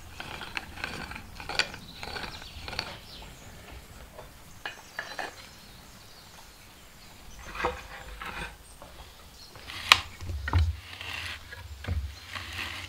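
A spiral auger bit with a wooden handle turned by hand, boring through a thin wooden board: irregular creaks and sharp wooden clicks, with a few dull knocks near the end.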